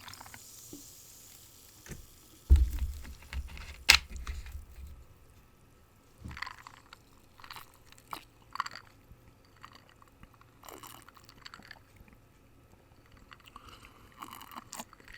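Coca-Cola over ice being drunk: a faint fizz at first, a low knock about two and a half seconds in and a sharp click a second later, then scattered short gulps and clinks of ice.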